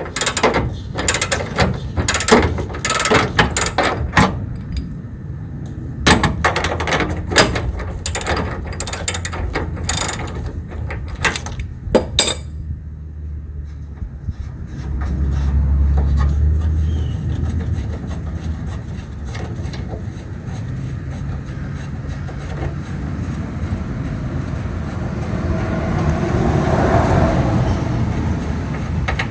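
Ratchet wrench with a 21mm socket clicking in quick bursts as it loosens a rear bumper mounting bolt, for about the first twelve seconds. After that the clicking stops and only a low steady rumble is left.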